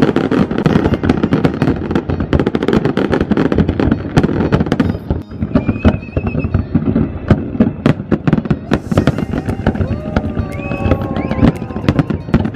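Fireworks display: a dense, rapid barrage of bangs and crackling from many shells bursting at once, with music underneath.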